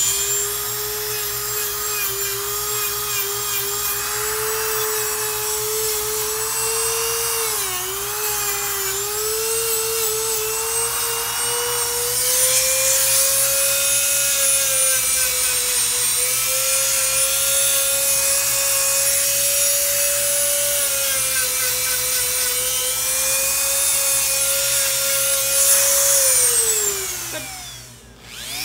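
Corded rotary nail grinder running on a dog's nails: a steady high motor whine that dips briefly in pitch twice, then winds down as it is switched off near the end.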